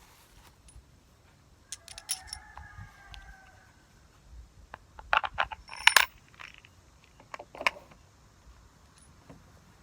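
Small metal parts clinking and knocking together in a few short clusters. One clink about two seconds in rings briefly, and the loudest knocks come about five to six seconds in.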